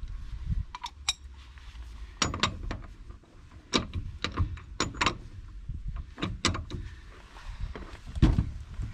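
Metal clicks and clanks of a long wheel wrench being fitted to and worked on a van's wheel nuts, coming in irregular strokes. The loudest is a heavy knock near the end, as a foot comes down on the wrench handle.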